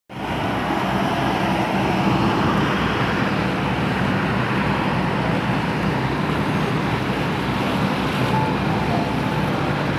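Diesel engine of a river express passenger boat running steadily under way, with the rush of water and wind along the hull.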